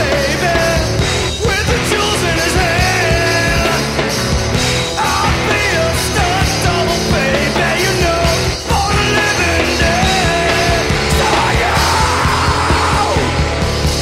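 Loud math rock band recording: a dense full band playing steadily, with a wavering, sliding melodic line on top.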